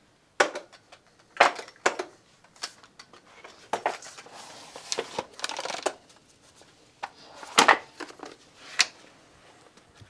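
Workshop handling noises: scattered sharp knocks and clicks as tools and parts are moved about, with a stretch of rustling around the middle.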